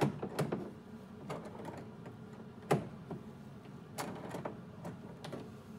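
Hand tool tightening a brass tank connector nut on a plastic cistern: scattered metallic clicks and taps as the tool is swung and reset, with one sharper click about halfway.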